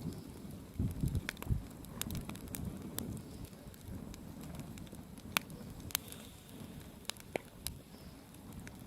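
Wood bonfire crackling, with irregular sharp pops scattered through a low steady rush.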